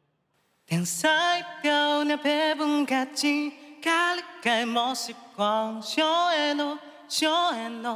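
A young man singing unaccompanied, a cappella, into a handheld stage microphone, in a Chinese dialect. He comes in about a second in and sings phrases of held notes with a clear vibrato, with short breaks between lines.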